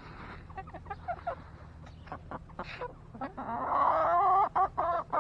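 Backyard chickens clucking close by as they crowd for mealworm treats, with scattered short calls and one louder, drawn-out, wavering call a little past three seconds in, followed by more short clucks.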